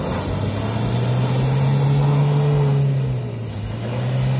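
Toyota pickup truck's engine revving as it pulls through deep mud, the pitch climbing over the first two seconds, sagging about three seconds in, then rising again.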